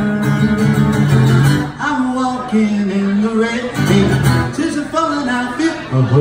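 Acoustic guitar strummed with a man singing along.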